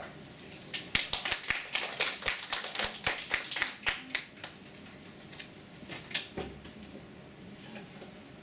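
Thin audience applause: scattered individual claps starting about a second in, dying away after about three and a half seconds, with one more sharp clap or knock near the end.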